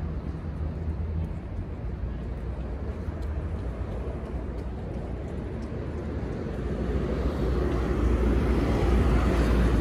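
Outdoor rumble, low and steady, growing louder about seven seconds in.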